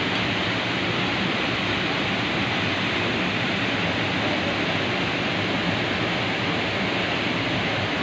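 Steady rushing of a waterfall: an even, unbroken wash of falling water.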